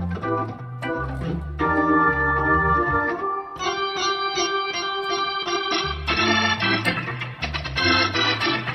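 Custom-assembled Hammond B3/A100 tonewheel organ played live: sustained, changing chords over low bass notes, with the bass dropping out for a few seconds midway.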